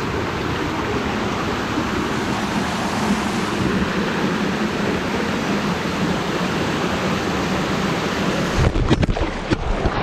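Rushing water of a small waterfall cascading over rocks, a steady roar heard close by. Near the end comes a jumble of knocks and thumps as the wearer slips on the wet rock and the camera is knocked about.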